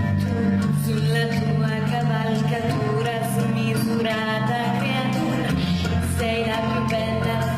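Music with a singing voice over sustained low accompaniment notes.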